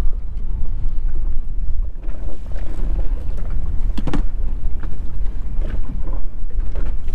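Strong wind buffeting the microphone and choppy water slapping against an anchored inflatable boat's hull, with a short sharp knock about four seconds in.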